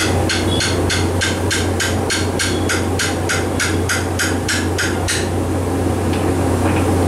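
Sharp, even hammering-like strikes, about three a second, that stop about five seconds in, over a steady low hum.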